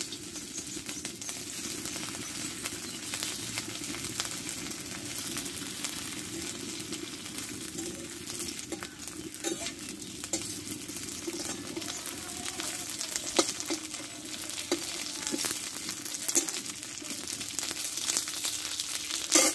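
Pieces of semolina-and-milk cake sizzling as they fry in a spoonful of cow's ghee in a karai (Indian wok). Short clicks and scrapes from the pieces going in and the spatula on the pan break through the steady sizzle, with one sharper knock near the end.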